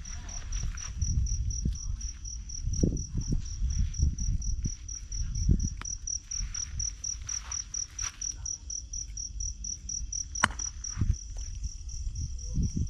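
An insect trilling steadily in a high, rapid, even pulse, over low rumbling noise and a few knocks. There is a sharp click about ten seconds in.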